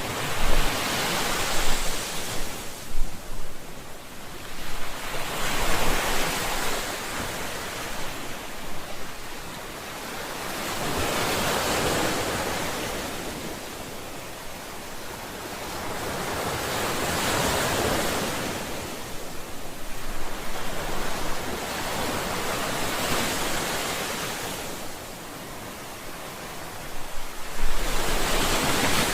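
Ocean surf: waves breaking and washing in one after another, the hiss swelling and fading every few seconds, with a louder surge near the end.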